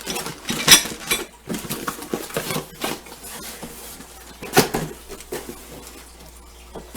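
Metal mounting hardware (brackets, bolts and screws) being handled, giving irregular clinks and knocks, with sharper knocks under a second in and again past the middle.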